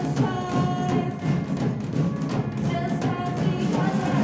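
Live rock band playing: drum kit hits with electric guitars and bass, a held guitar note ringing over the beat.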